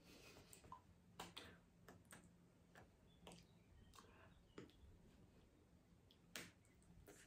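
Near silence with faint, irregular clicks and taps from a person signing: hands meeting and mouth sounds as she mouths the words, over a faint low hum.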